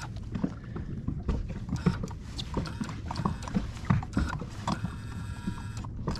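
Irregular light knocks and taps on a fishing boat, with a steady whine joining about three-quarters of the way through.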